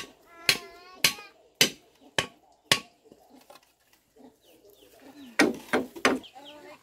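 Machete chopping into a wooden pole, sharp strikes about two a second, six in a row, then three more near the end after a pause.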